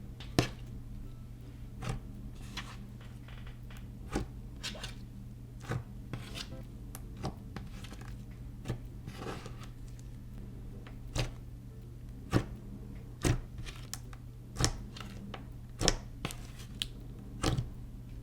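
Clear glue slime being mixed and kneaded by hand, giving sharp clicking pops at uneven intervals of about a second. A steady low hum runs underneath.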